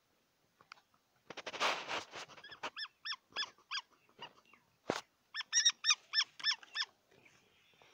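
Falcon calling in short, repeated notes, each rising and falling in pitch: a run of about five, then after a sharp knock a faster run of about seven. A brief rustle comes before the first calls.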